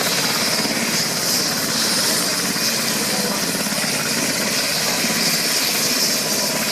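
Helicopter running close by, a steady fast chop of rotor blades over the whine of the engine.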